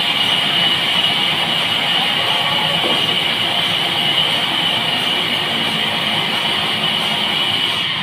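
Large horizontal bandsaw mill cutting lengthwise through a squared log: a steady high saw whine over the hiss of the blade in the wood.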